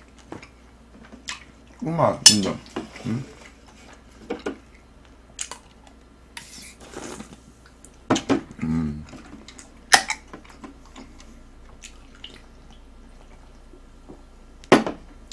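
Close-miked eating sounds: scattered clinks and clicks of utensils and tableware on dishes, with chewing and a few short murmured mouth sounds.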